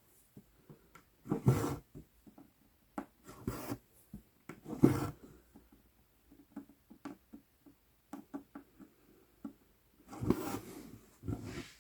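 Embroidery floss being drawn through 11-count Aida cloth with a size 24 tapestry needle: five short rasping rubs as the thread is pulled through, with small ticks and taps of the needle and hoop between them.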